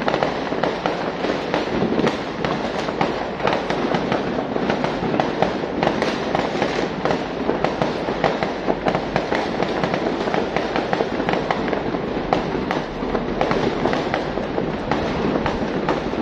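Many New Year fireworks going off at once: a dense, unbroken crackle of pops and bangs.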